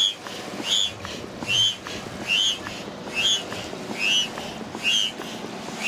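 Foot-operated bellows pump pushing air through a hose into an inflatable PVC boat. Each stroke gives a short squeaky whistle that rises and falls, evenly repeated a little faster than once a second, about eight times.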